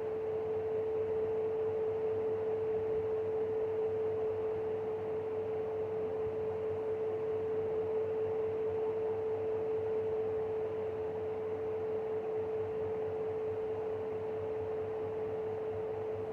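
Fan running with a steady, pure hum held at one pitch, just under 500 Hz, over a soft rush of air. This is an abnormal, weird-sounding hum from the fan.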